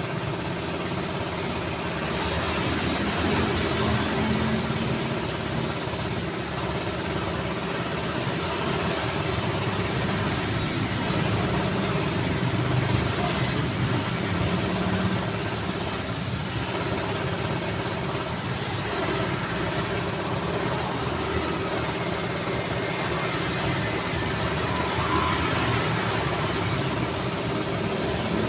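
Steady city road traffic: a continuous mix of vehicle engines running, with no single event standing out.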